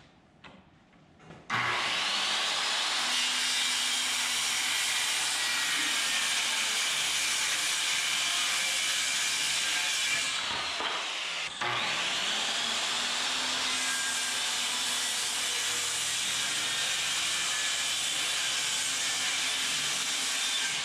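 Circular saw ripping a sheet of plywood: the motor spins up about a second and a half in and cuts steadily. It eases off briefly about ten seconds in, then spins up again just before twelve seconds and keeps cutting.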